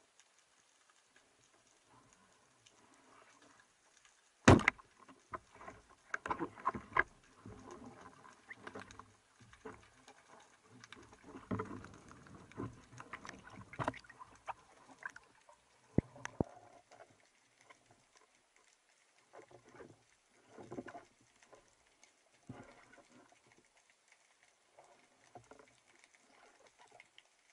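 Underwater shot of a Dentex 100 rubber-band speargun: one sharp, loud crack about four and a half seconds in as it fires. Irregular knocks and rattles of the shaft and gear follow, with another sharp click near sixteen seconds and fainter knocks later.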